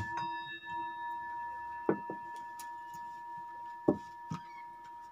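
A ringing, bell-like tone of several steady pitches, slowly fading, with a few sharp clicks from a deck of cards being handled about two and four seconds in.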